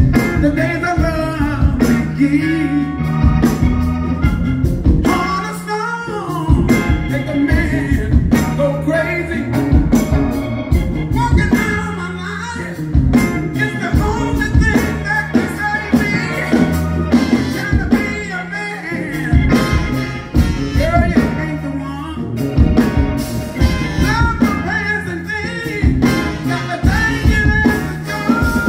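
Live soul band playing, a man singing lead over electric bass, electric guitar, drum kit and keyboard.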